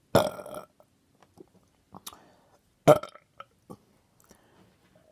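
A person letting out two loud burps: a long one just after the start and a shorter, sharper one about three seconds in.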